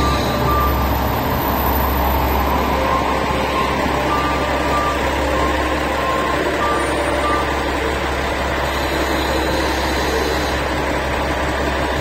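KiHa 47 diesel railcar idling at a standstill, a steady low engine hum. A repeating electronic beep sounds over it through roughly the first half.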